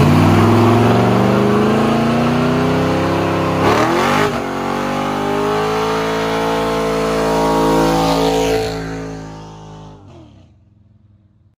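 Chevrolet C20 pickup's 350 small-block V8 revving hard through a burnout. The engine climbs in pitch at the start, holds high revs with a brief break about four seconds in, then fades out near the end.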